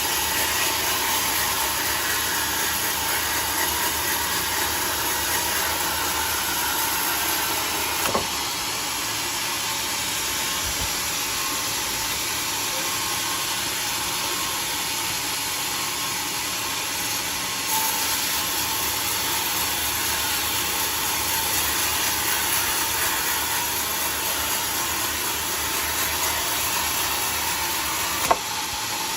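Band sawmill running: a steady, hiss-like machine noise, with a brief knock about eight seconds in and another near the end.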